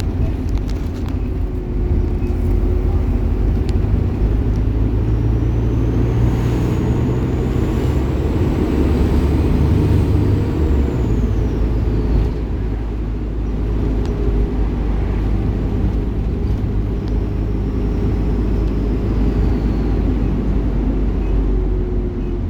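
Bus engine and road noise heard from on board, a steady low rumble whose engine note shifts partway through, with a faint high whine rising and falling in the first half.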